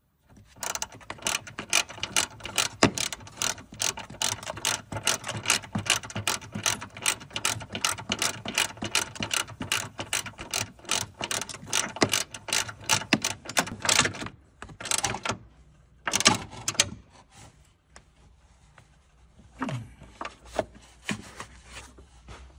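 Ratchet socket wrench clicking rapidly as it runs in the bolt holding a hood strut ball-stud bracket. A long stretch of quick, even ratchet clicks stops about fourteen seconds in, then comes back in a few shorter bursts.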